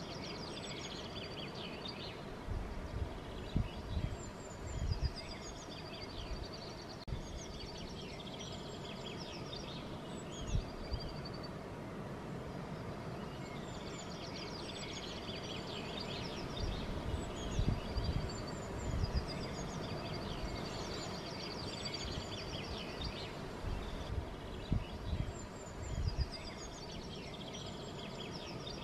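Small songbirds singing short, repeated phrases of high chirps and trills every few seconds over a steady outdoor hiss. Low gusts of wind bump against the microphone several times.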